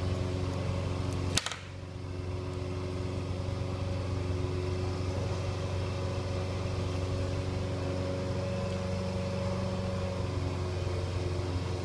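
A steady machine hum with several constant tones, like a fan or motor running, with one sharp click about a second and a half in.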